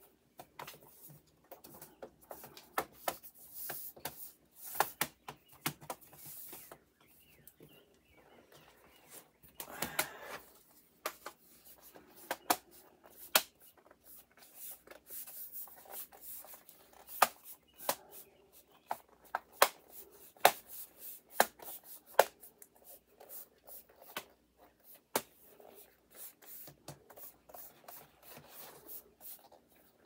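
Plastic bottom cover of an HP Omen 17 laptop being pressed and worked back onto the chassis: many sharp, irregular clicks and snaps of its clips, with plastic rubbing and scraping in between.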